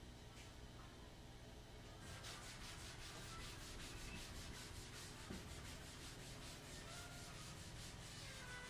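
Chalkboard being wiped clean by hand: brisk, faint rubbing strokes, several a second, starting about two seconds in.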